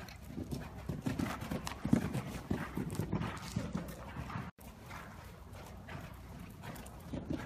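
Hoofbeats of a ridden horse moving over soft dirt arena footing: a run of dull thuds, quieter after a brief dropout about halfway through.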